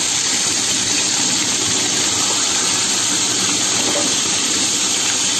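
Bhola fish fritters wrapped in bottle gourd leaves, freshly put into hot oil, sizzling steadily in the pan.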